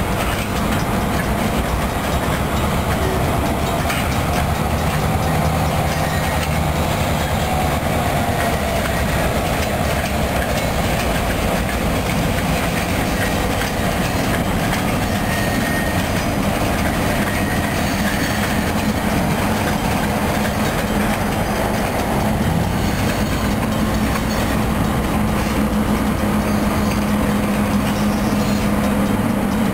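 Freight train rolling slowly past: the wheels of boxcars and hopper cars clicking over the rail joints, with the steady hum of the diesel locomotive running underneath.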